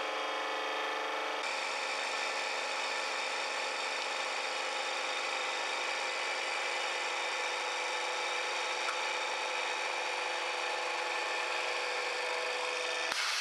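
Hydraulic press running steadily as its ram slowly crushes an aerosol can. Near the end comes a sharp crack as the can splits, and hissing starts.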